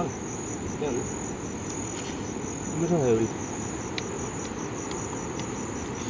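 Insects in the grass trilling: a steady, high-pitched chirring with a rapid, even pulse.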